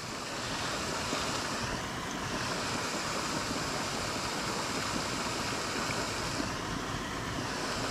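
Steady rushing, splashing water noise from a lake aerator churning the surface, described as noisy.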